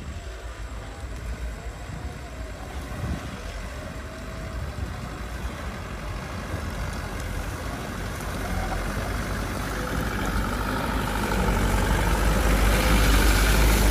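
Mitsubishi Fuso truck loaded with sugarcane, its diesel engine running at low speed as it crawls along a rutted field track. The engine grows steadily louder as the truck comes up close.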